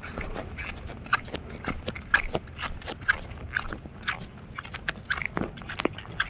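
Footsteps, about two a second, each a short crunchy scuff.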